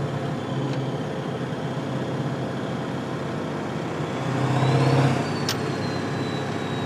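Ford Powerstroke diesel engine running, swelling louder about four seconds in as its polished-housing turbo's high whistle rises and then holds as a steady whine. A single sharp click sounds just after the swell.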